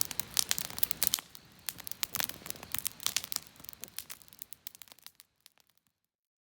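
Dense crackling and popping, many sharp snaps a second, thinning out and fading away near the end into silence.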